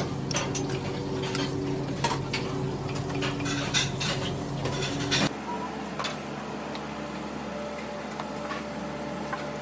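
Knife and fork clicking and scraping against a ceramic plate, many quick clinks over a steady hum. About five seconds in the clinking stops abruptly, leaving a quieter steady hum with a few faint knocks.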